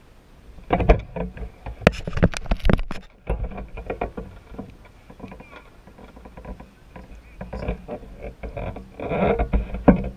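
Handling noise on a handheld camera's microphone: a cluster of knocks and clicks about a second in, then rubbing and rustling, louder again near the end.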